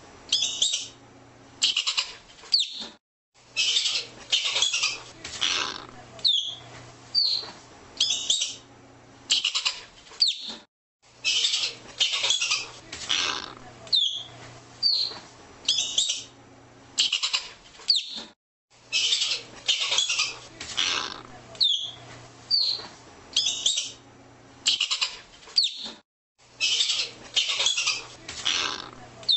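Arctic ground squirrel calling: short, sharp chirps that slide downward in pitch, alternating with longer chattering bursts of a second or two, the whole pattern repeating about every seven or eight seconds.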